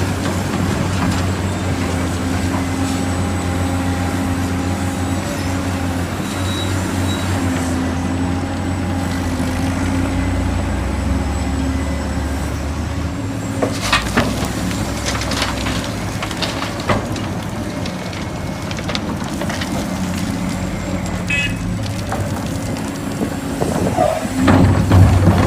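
Heavy diesel vehicle engine running steadily with a low hum, with a cluster of clanks and clicks about halfway through and the engine growing louder near the end.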